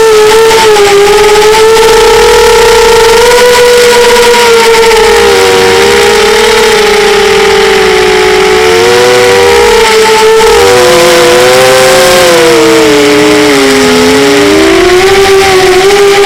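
Model airplane engine running at high revs, a loud, steady buzz whose pitch wavers. In the middle a second engine tone separates from it, drifting up and down before the two merge again.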